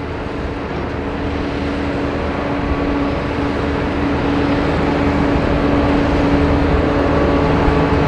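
Jet engine noise from a Boeing 737-800 rolling slowly on the runway: a steady rushing noise with a held hum underneath, growing gradually louder.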